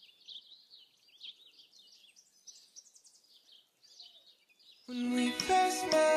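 Faint chirping of small birds, many quick high notes, then about five seconds in music starts abruptly and much louder.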